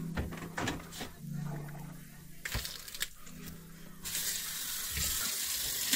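Water running into a bathroom sink. It starts about four seconds in as a steady hiss, after a few light clicks and knocks.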